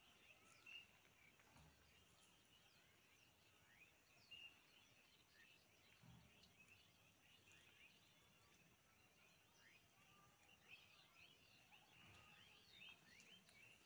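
Near silence: faint outdoor ambience with scattered faint bird chirps, more of them in the last few seconds.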